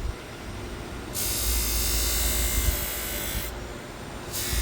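Buffing-wheel motor running steadily, turned down in speed, with a loud hiss from the spinning wheel as work is pressed against it with buffing compound. The hiss starts about a second in, stops about three and a half seconds in, and returns near the end.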